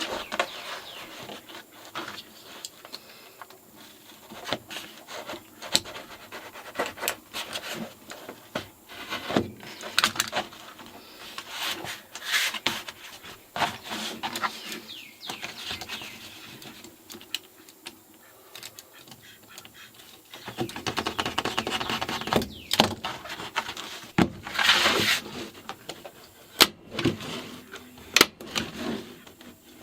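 Vinyl sheet flooring being handled and stapled down onto a plywood floor: scattered sharp clicks and knocks, with a stretch of dense rustling from the vinyl sheet past the middle and a few sharp staple-gun snaps near the end.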